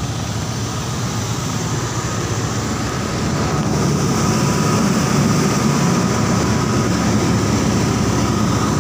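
Steady low drone of a ship's engines and machinery heard on deck, with a faint steady whine above it; it grows louder about three to four seconds in.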